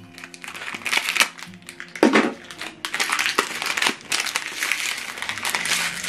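HP 304 ink cartridge packaging crinkling and crackling as it is pulled open by hand, in irregular bursts with a louder tear about two seconds in. Soft background music runs underneath.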